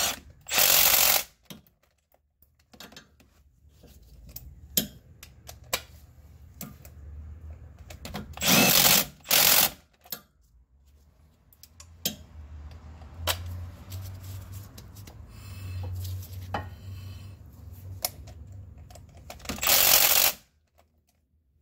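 Power impact wrench running in the axle-shaft flange bolts through a long extension, in four short bursts of about a second each: about a second in, twice close together near the middle, and once near the end. Faint clicks come between the bursts.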